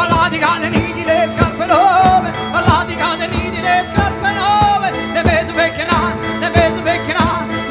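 Live southern Italian folk music in tarantella style, with a wavering, ornamented melody line over a steady drone and an even, driving beat.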